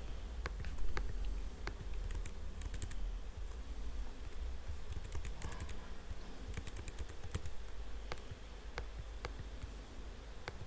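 Typing on a computer keyboard: scattered, irregular keystrokes over a steady low hum.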